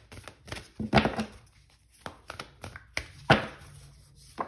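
A tarot deck being shuffled by hand: a run of light card taps and flicks, with two louder knocks of the deck, about a second in and just past three seconds.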